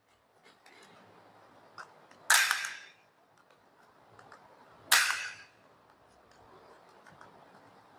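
Hand-held circle punch snapping through a playing card twice, about two and a half seconds apart, cutting out round counters, with faint small clicks of handling between.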